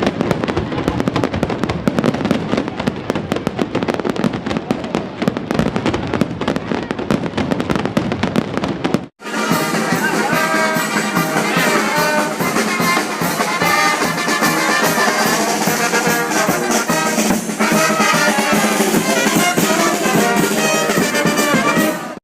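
Fireworks crackling and banging densely for about nine seconds. Then, after a sudden cut, a brass band playing.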